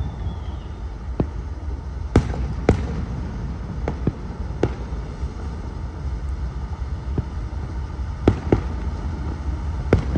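Fireworks going off, about a dozen sharp bangs at uneven gaps, the loudest about two seconds in and near the end, over a steady low rumble.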